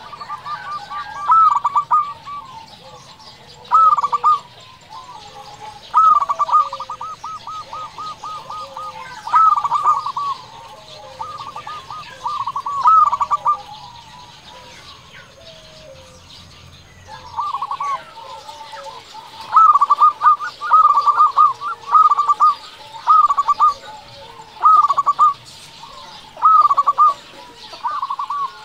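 Zebra dove (perkutut) singing its cooing song: repeated bursts of quick, rolling coos, about one every second or two, with a pause of a few seconds a little past the middle.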